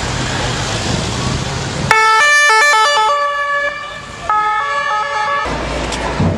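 Police van's siren starting suddenly about two seconds in, switching quickly between pitches and then holding, with a short break, before cutting off abruptly; street and engine noise before it, crowd noise after.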